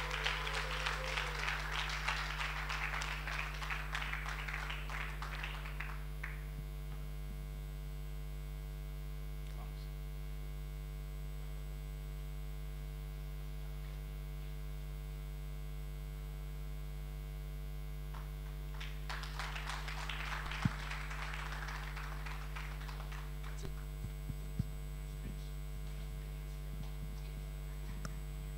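Audience clapping for about six seconds, dying away, then a second shorter round of clapping about twenty seconds in, over a steady electrical mains hum from the PA system.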